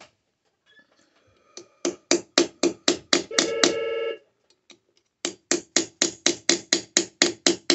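Hand hammer striking a sterling silver square on a steel block in quick runs of blows, about four to five a second, with a short pause at the start and another midway. A steady ringing tone sounds for just under a second about a third of the way in, over the blows.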